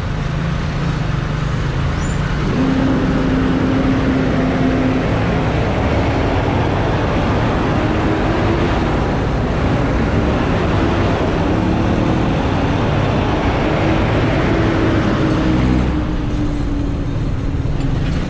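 Italika DT 125 motorcycle's single-cylinder engine running under way in city traffic, mixed with wind rush and the noise of vehicles around it. The engine note holds steady, then wavers and climbs in pitch through the middle, and eases off a little near the end.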